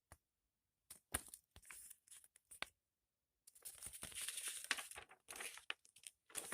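Handling of a DVD case's paper leaflet insert: a few light clicks and taps, then about three seconds of crinkling and rustling starting halfway through.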